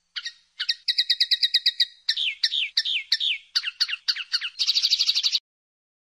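Common linnet singing one song phrase: a few opening notes, a rapid trill of about ten notes a second, a run of falling slurred notes, then a very fast buzzy trill that cuts off suddenly.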